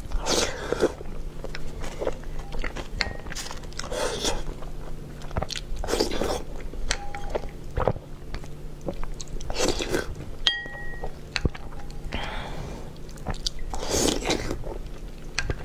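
A person eating spicy food up close, biting and chewing, with a burst of biting about every two seconds.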